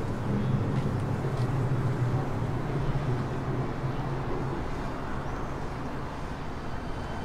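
City traffic noise: a steady low engine drone from a vehicle that fades out a little past halfway, over a constant wash of distant road traffic.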